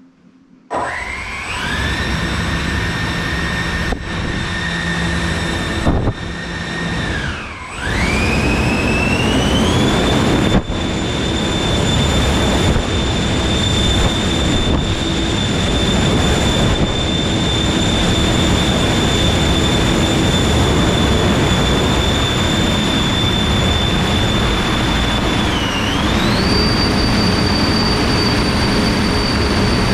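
A motor-driven machine starts about a second in, running with a steady high whine over a rushing noise. Its pitch dips and then climbs to a higher, steady pitch twice: near eight seconds and again near the end.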